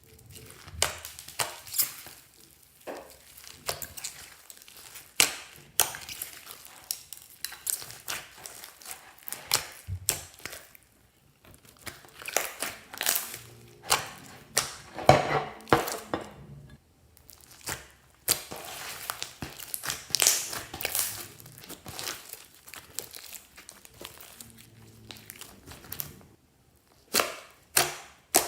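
Slime being squeezed and pressed by hand: a dense run of short, sharp crackles and pops, coming in clusters with a few brief pauses.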